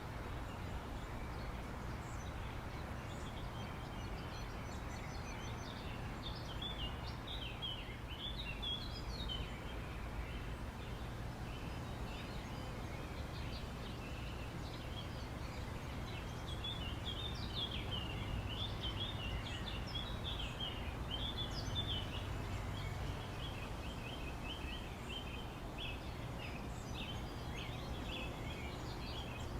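Birds chirping in quick, high calls over a steady low rumble, with a short burst of calls early and near-continuous chattering through the second half.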